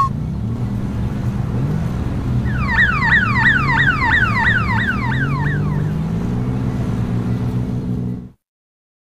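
Road traffic with vehicle engines running. For about three seconds in the middle, a rapid electronic alarm of falling tones sounds over it, about four a second. Everything cuts off abruptly near the end.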